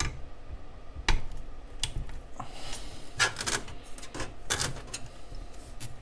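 Sleeved PC power cables being pushed into place beside a graphics card inside a computer case: a few sharp plastic clicks followed by bursts of rubbing and rustling as the cables and connectors are pressed and seated.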